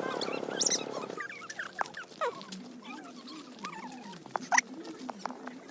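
A steady mechanical running noise that stops about a second in, followed by scattered chirping and wavering animal calls.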